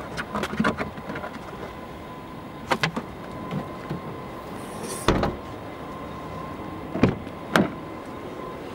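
Clicks and knocks of a car's doors and fittings being handled, with a heavy door-like thud about five seconds in and two more thuds near the end, over a faint steady tone.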